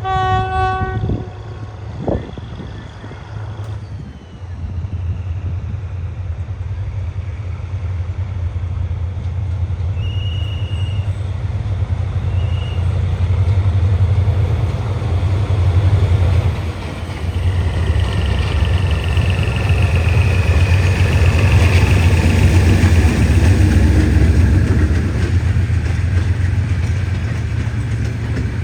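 Diesel train sounding its horn once, about a second long, then a heavy, steady low engine rumble as it runs by. Two short high beeps come near the middle, and a long high squeal rises in the second half.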